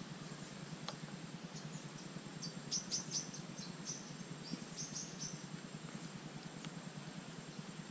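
Outdoor ambience: a quick run of short high chirps from a small bird through the middle, over a thin steady insect whine and a steady low hum.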